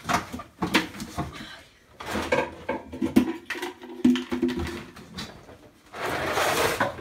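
Someone rummaging through bags, crates and boxes on a shed floor: irregular knocks and clatter of things being moved, with plastic-bag rustling, heaviest about a second before the end.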